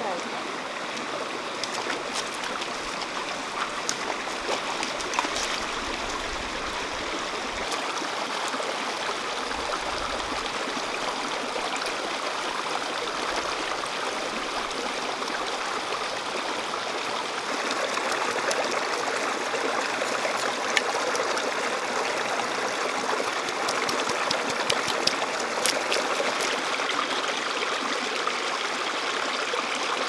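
Stream water running steadily, a little louder from about halfway through, with scattered small clicks.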